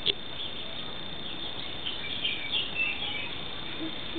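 Outdoor ambience of small birds chirping in short calls over a steady, high insect drone, with a brief tap near the start.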